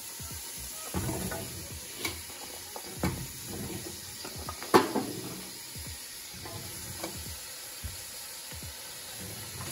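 Raw butternut squash cubes tipped from a bowl into a stainless steel pot of hot oil and curry powder: a steady sizzle with several knocks as the cubes and bowl hit the pot, the loudest about five seconds in.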